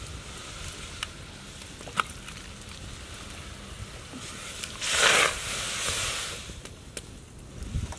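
A raw fish head dropped into a wok of steaming hot water: one loud splash about five seconds in, trailing off in a second or so of sloshing. Before it, a low steady hiss with scattered faint ticks.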